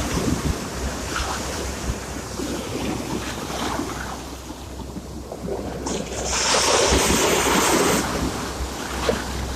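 Sea waves washing in, a rushing surge that swells loudest about six seconds in and then ebbs.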